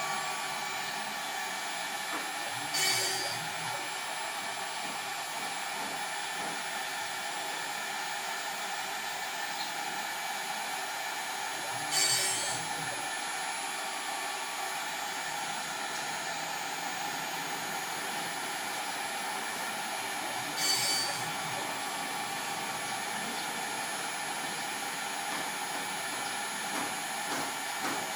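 Stepper motor of a homemade Arduino-driven rotary 4th axis on a CNC router, running with a steady many-toned whine. Three short, louder, hissier bursts come about nine seconds apart.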